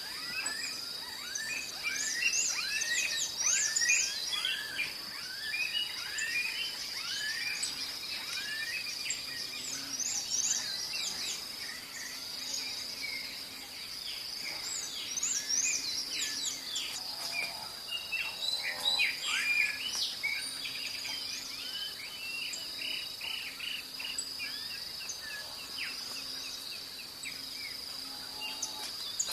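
Dawn chorus of several birds chirping and whistling in quick, overlapping phrases, over a steady high insect trill that runs underneath.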